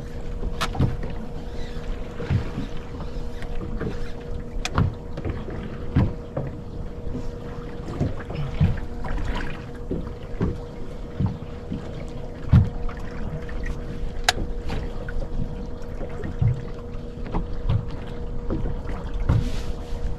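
Small fishing boat drifting: water slapping and knocking against the hull at irregular intervals, with a few sharp clicks, over a steady hum.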